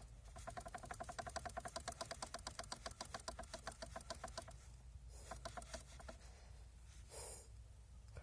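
Lada Kalina's electric power steering unit (MONDO) knocking in a fast, even rattle of about ten clicks a second for some four seconds, then a shorter burst of the same rattle. The rattle is the fault itself: a knocking power steering assist unit. A brief rushing noise follows near the end.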